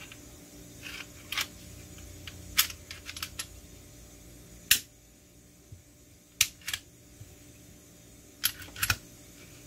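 Sharp metal-and-polymer clicks and clacks of a Smith & Wesson M&P Shield .45 ACP pistol being reassembled and worked by hand, as the slide goes back onto the frame and the parts snap into place. About ten separate clicks come at uneven intervals, some in quick pairs.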